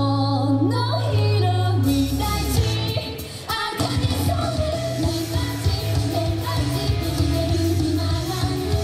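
Japanese idol-pop song played through PA speakers, with women singing into microphones. A slower stretch of held notes drops out briefly a little past three seconds, and a fuller, driving band beat comes in under the singing.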